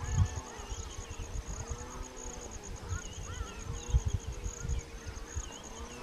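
A flying insect buzzing, its hum slowly wavering up and down in pitch, over the fast, steady high pulsing of another insect calling.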